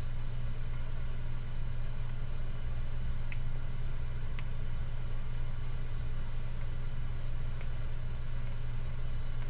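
A steady low hum, with a few faint clicks as the buttons of an LED strip's remote control are pressed.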